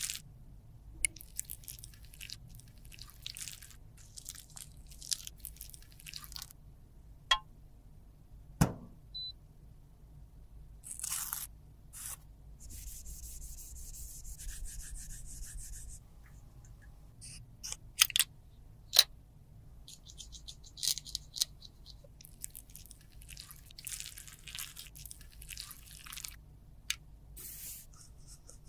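Close-up handling of an empty lipstick tube: a metal spatula scraping out the old lipstick, then a tissue pad rubbed around inside the tube with tweezers to clean it. Scattered sharp clicks and one knock from the metal tools against the tube.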